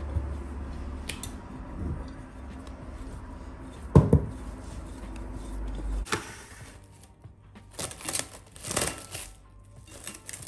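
Hands kneading pizza dough in a glass bowl, with one loud knock about four seconds in. In the second half, plastic cling film rustles in a few short bursts as it is pulled off and stretched over the bowl.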